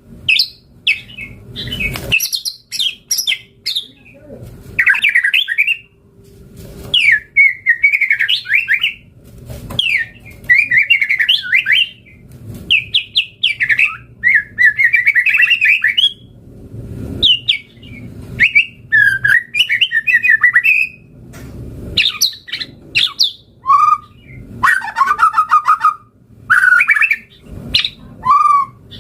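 White-rumped shama (murai batu) singing continuously in fast, varied phrases of whistles and chattering notes, each phrase a second or two long with brief pauses between.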